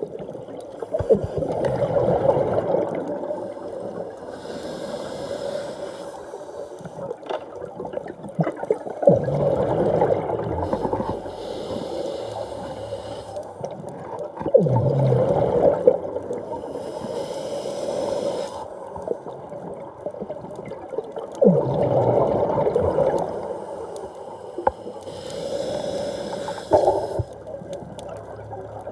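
A diver's breathing heard underwater: a gurgling burst of exhaled bubbles every six or seven seconds, with a fainter hiss between the bursts.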